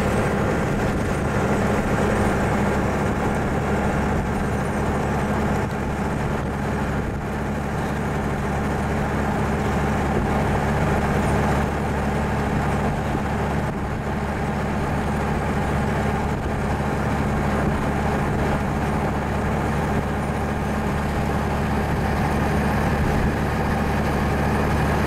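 1920 Locomobile Model 48's six-cylinder engine running steadily as the car cruises on the road, with wind and road noise in the open body.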